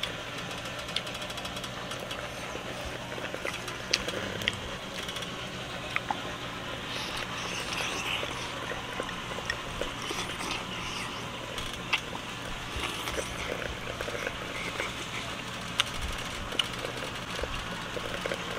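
Chopsticks clicking now and then against a porcelain bowl and a metal hot pot as someone eats, over the pot bubbling on its gas burner and a steady low hum.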